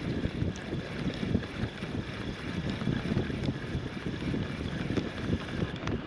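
Wind buffeting the microphone in a steady low rumble, with faint ticking from a spinning reel being cranked to bring the line in.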